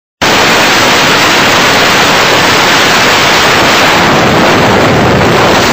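A loud, steady hiss like static, cutting in abruptly a moment in and holding level.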